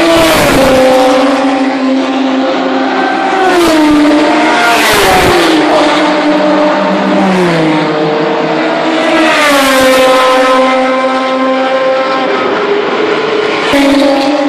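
Historic 1970s–80s touring race cars passing at full speed one after another, each engine note falling in pitch as the car goes by, with other engines running underneath. About six passes, the loudest near the start, around five seconds in and about ten seconds in.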